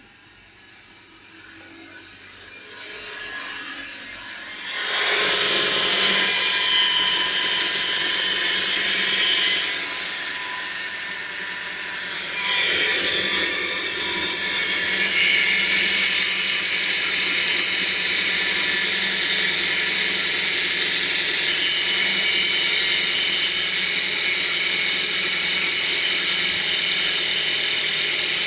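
A loud, steady, high whirring-grinding noise from a Tata Bolt car, the unexplained fault noise being shown. It builds up over the first few seconds, eases briefly about ten seconds in, then comes back and holds.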